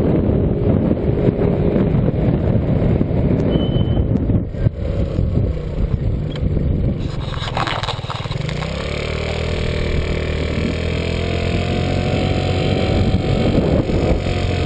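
Small motor scooter engine running while riding, with wind rushing over the microphone through the first half; about eight seconds in the engine note comes through clearly and rises steadily as the scooter gathers speed.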